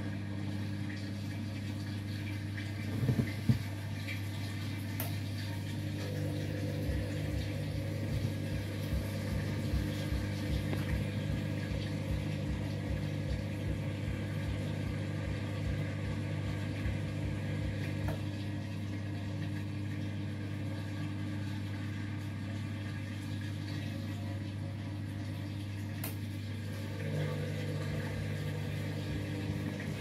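Front-loading washing machine running with its drum turning through foamy water: a steady motor hum with water sloshing. Two brief louder knocks come about three seconds in.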